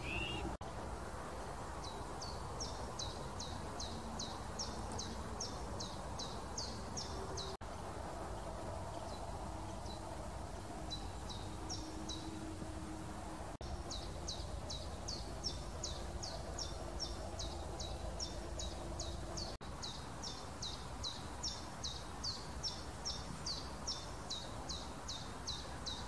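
A small songbird repeats short, high, falling notes about three a second in long runs, over a steady low outdoor background hum.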